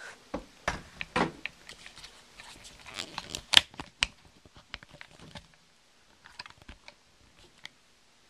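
Handling noise from a small handheld video camera being moved about and set down: irregular clicks, knocks and rustles on the microphone, loudest a little past three seconds in, thinning to a few faint clicks after about five and a half seconds.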